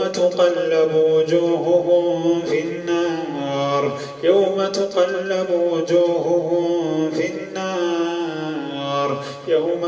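A man reciting Quran verses in a slow, melodic chant, drawing each phrase out in long held notes, with short breaths about four seconds in and near the end.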